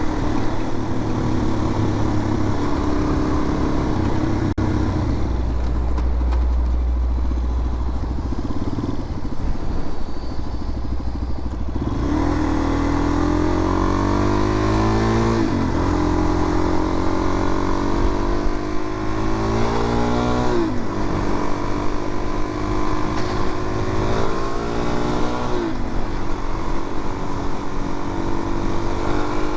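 Suzuki DR-Z400's single-cylinder four-stroke engine on the road, running steadily for about twelve seconds. It then accelerates through the gears, its pitch climbing and dropping back at three upshifts about five seconds apart.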